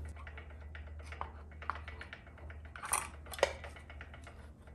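Light clicks and taps of metal parts being handled as the GM TH400's low-reverse servo piston and cover are set into the transmission case bore, with two sharper clicks about three seconds in. A steady low hum runs underneath.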